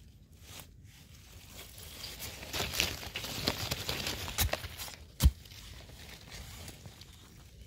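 Hands rustling and scraping in the ground while picking termite mushrooms. Small clicks run through the rustling from about two seconds in, and a single sharp knock just after five seconds is the loudest sound.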